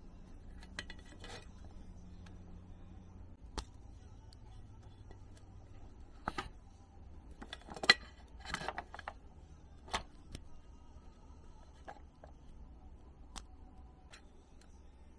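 Scattered small clicks and taps of small plastic parts, a blue block on a black rail, being handled and worked apart by hand over a stainless steel tray. The sharpest click comes about eight seconds in, followed by a short run of clicks. A low steady hum lies under it all.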